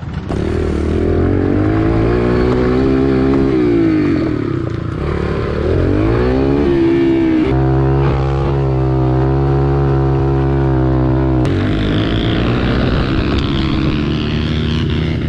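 Four-stroke pit bike engine revving up and down as it is ridden, with a stretch held at steady revs before the sound changes abruptly.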